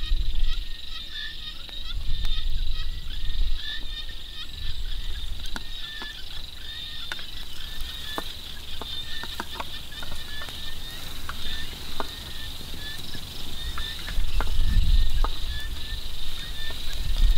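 Utensil clicking and tapping against a metal wok as deep-fried giant water bugs are lifted out, with sharp clicks clustered in the middle. A steady outdoor chorus of insects with repeated chirping runs underneath.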